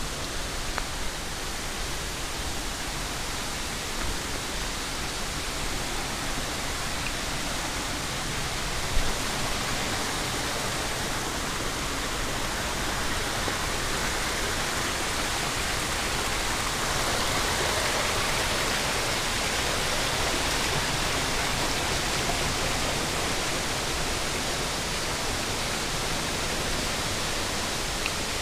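Mountain stream water rushing and cascading over boulders below a waterfall, a steady rushing that grows a little louder about two-thirds of the way through. A single brief knock about nine seconds in.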